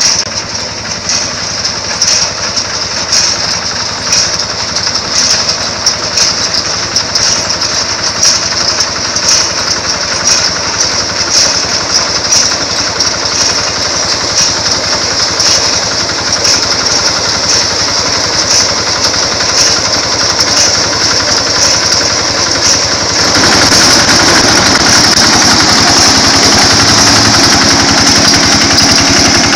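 Rice combine harvester running at work, its engine and threshing machinery making a steady, loud mechanical noise with a fast rattle; it grows louder about three quarters of the way through.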